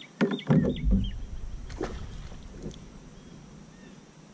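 Knocks and a short splash at a plastic paddle boat about a quarter second in, as a small bass is dropped back into the water. A fainter knock follows near two seconds, and a songbird chirps a few times.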